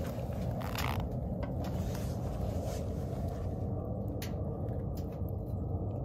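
Wood fire burning hard inside a homemade vacuum-canister stove: a steady low rumble of the draft, with a few sharp crackles and clicks.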